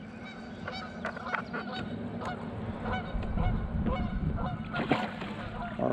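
Geese honking: a series of short, repeated calls, with a low rumble building in the second half.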